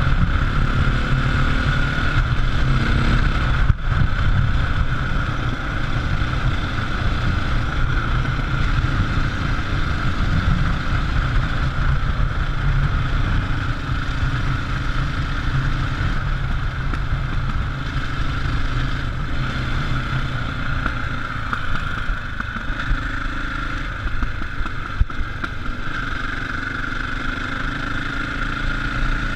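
KTM enduro motorcycle engine running steadily under way, with some short changes in pitch as the throttle is worked, and wind noise on the camera microphone.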